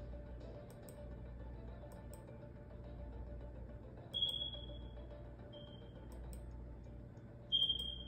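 Three short high-pitched electronic beeps from the online auction web page through the computer's speakers, about four, five and a half and seven and a half seconds in, each fading out; they signal bids being placed. A faint steady low hum lies beneath.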